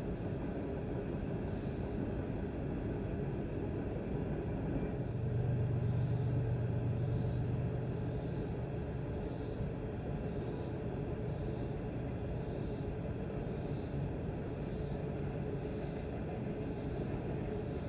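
Steady low rumble of a loaded coal train rolling across a steel truss bridge, swelling for a few seconds partway through. Insects chirp faintly over it, about once a second.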